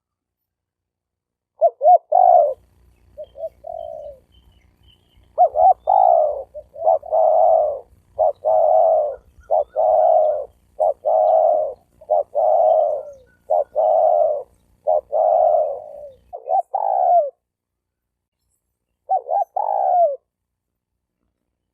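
Male spotted dove cooing: a run of short coos, one after another. A brief gap comes a few seconds in, a longer pause near the end, then a couple more coos.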